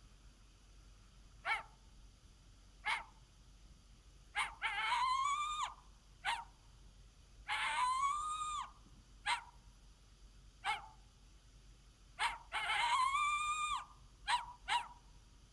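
Triple-reed diaphragm coyote howler call blown in imitation of coyote vocalizations: a string of short, sharp barks and yips with three longer howls that rise and then hold steady for about a second each.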